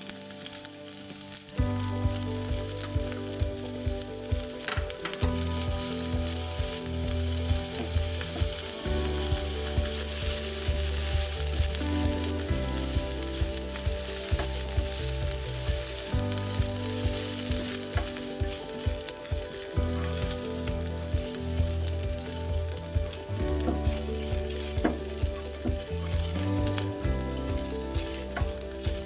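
Chopped garlic and ginger sizzling in hot oil in a non-stick frying pan, stirred with a wooden spatula. From about a second and a half in, a low tone that shifts in pitch every second or two runs underneath.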